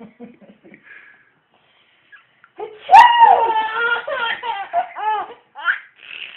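An adult's fake sneeze, one sharp burst about three seconds in, and then a five-month-old baby laughing in high, squealing peals that rise and fall for a few seconds.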